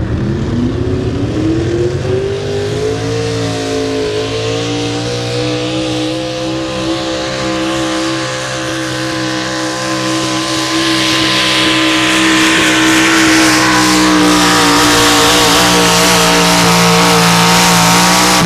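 Pulling pickup truck's engine at full throttle hauling a weight-transfer sled. It revs up over the first few seconds, then holds at high revs, and grows louder in the second half as the truck comes closer.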